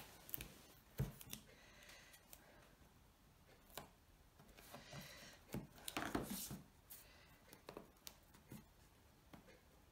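Faint handling sounds of double-sided tape and paper on a cardboard box: soft taps and clicks, with a short cluster of rustling rasps about six seconds in.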